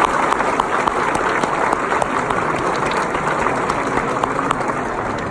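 Audience applauding after a choir's song: dense, steady clapping that eases off slightly near the end.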